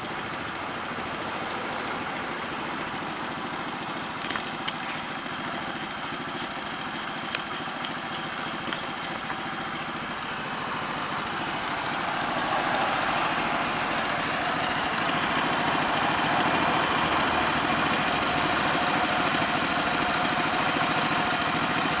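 Honda Super Cub 50's small air-cooled single-cylinder four-stroke engine idling steadily, showing the old bike's engine runs. A few light clicks come about four to nine seconds in, and the engine sound grows louder about halfway through.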